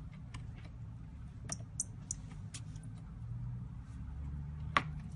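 Scattered light clicks and ticks of small tools on phone parts, with one sharper click near the end, over a low steady hum.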